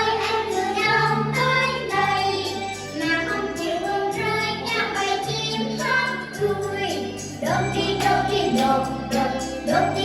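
Children's song with instrumental accompaniment, sung by a class of young children.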